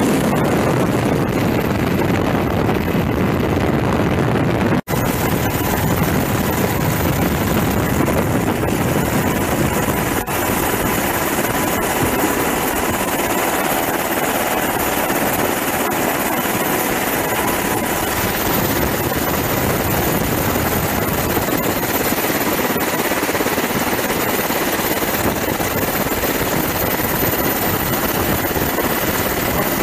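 Military helicopter in flight, heard from aboard: steady, loud rotor and turbine noise with a faint steady whine. The sound cuts out sharply for an instant about five seconds in.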